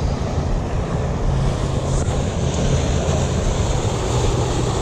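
Wind on the microphone over a steady low hum.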